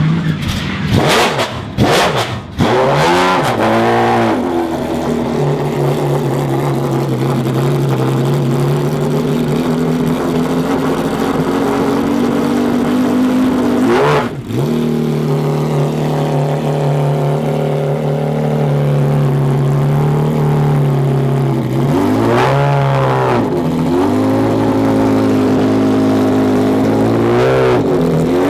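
McLaren F1 GTR Longtail's BMW V12 race engine starting up and catching in the first couple of seconds, then idling steadily. It is revved about four seconds in, blipped once near the middle, and revved twice more near the end.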